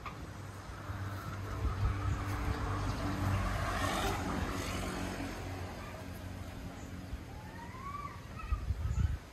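A motor vehicle's engine hums steadily as it passes, growing louder to a peak about four seconds in and then fading. Near the end there are two short rising chirps.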